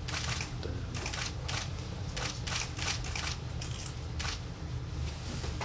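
A dozen or so short, sharp hissing bursts in quick, irregular succession, stopping a little after four seconds in, over a steady low hum: the forced breaths of a strongman straining to bend a #2 horseshoe gripped in his teeth.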